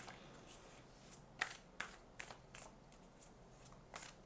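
A deck of oracle cards shuffled by hand: a quiet run of irregular card clicks and slaps, about two or three a second, the sharpest a little over a second in.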